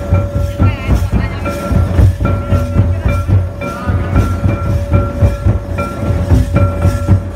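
Loud Santali dance music with a fast, dense drum beat and a short, high melody phrase repeated over and over.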